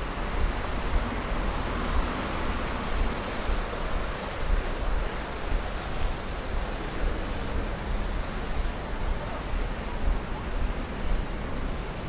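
Steady rush of flowing stream water, with a low rumble of wind buffeting the microphone.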